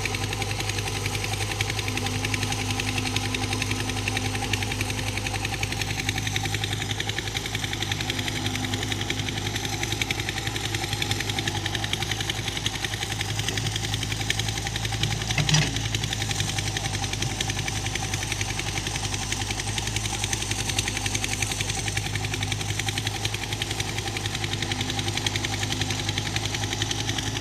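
Excavator's diesel engine running steadily, with one short knock about halfway through.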